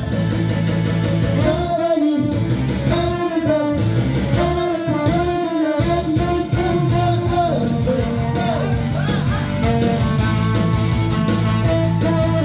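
Saxophone playing a sliding, expressive melody over a steady instrumental accompaniment.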